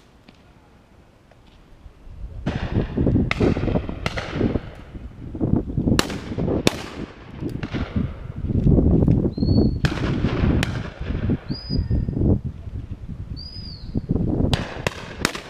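Shotguns firing on a pheasant shoot: about ten sharp reports starting about two seconds in, with a quick cluster of three near the end and a low rumble between the shots.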